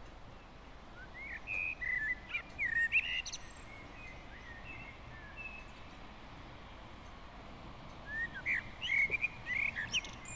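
A songbird singing two short phrases of quick chirps and whistled glides, about a second in and again near the end, over a steady faint outdoor hiss.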